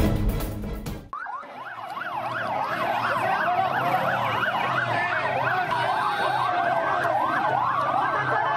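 Background music cuts off about a second in, giving way to several emergency sirens sounding at once, their fast rising and falling sweeps overlapping.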